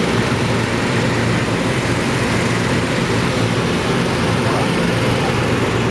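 Balloon inflator fans running steadily, blowing cold air into hot-air balloon envelopes that lie on the ground: the cold-inflation stage before launch.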